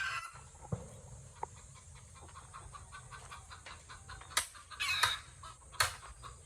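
Chickens clucking, with a few louder short calls about four to six seconds in.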